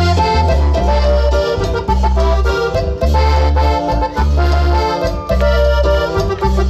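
Live Latin dance music from a band through PA speakers: an accordion melody over a heavy bass line that repeats in regular notes.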